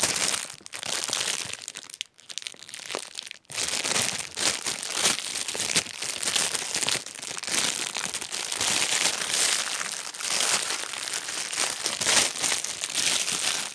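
Plastic packaging crinkling as it is handled, nearly continuous, with brief dips about two and three and a half seconds in.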